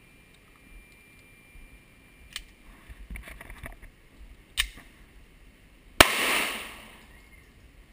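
A single 9mm Glock pistol shot about six seconds in: a sharp crack followed by a ringing echo that fades over about a second. Before it come a few small clicks and one shorter, sharper crack about four and a half seconds in.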